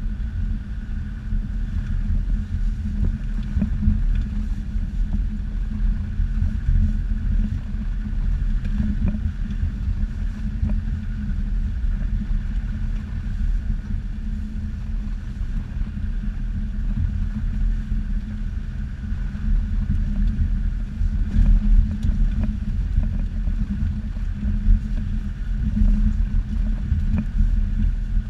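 Off-road 4x4's engine running at low revs as it crawls along a rocky dirt trail: a steady low rumble, with occasional knocks scattered through.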